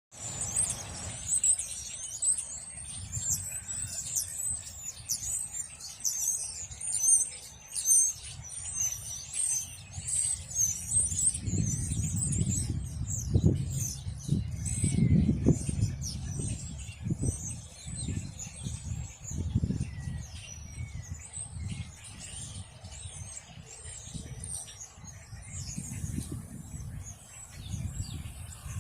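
A flock of small birds calling constantly in high, overlapping chirps, thickest in the first half. Bursts of low rumble come and go midway.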